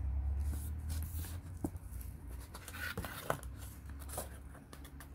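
Corrugated cardboard box being opened by hand: the flap lifted and the box handled, with a few light clicks and brief rustles of cardboard.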